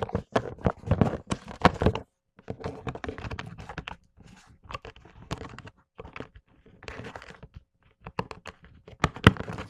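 Packaging being tugged and torn to free a plastic model horse from its box: irregular crunching, scraping and tearing with knocks, thickest near the end.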